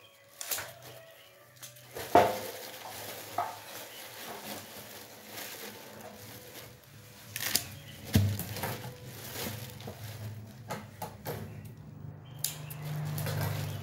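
Knocks and clatter of a metal pan being handled as lettuce leaves and vegetables are laid into it, with light rustling of the leaves. The loudest knock comes about two seconds in, and a low steady hum runs underneath.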